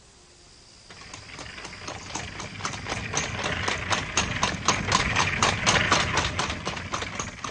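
Cartoon sound effect of a horse-drawn carriage setting off: quick, even clip-clop hoofbeats with the carriage rolling. It starts about a second in, grows louder, then fades near the end.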